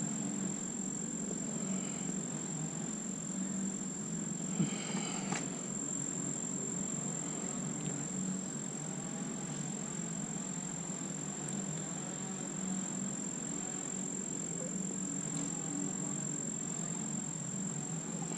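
Crickets trilling: one steady, unbroken high-pitched tone over a low steady hum, with a single short knock about four and a half seconds in.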